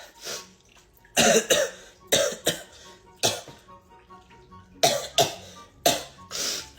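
A woman coughing repeatedly in short harsh bursts, mostly in quick pairs, with quiet background music under it.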